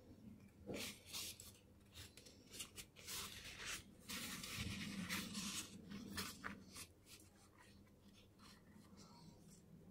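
Faint rubbing and rustling of hands pressing a leather insole and its foam padding into a sandal footbed, a series of short scrapes that die away about seven seconds in.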